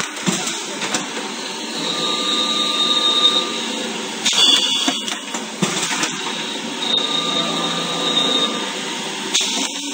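Automatic coupler peeling and chamfering machine running: a steady machine noise, with a thin high whine during two stretches of cutting and a short burst of hiss about halfway through and again near the end as the cycle repeats.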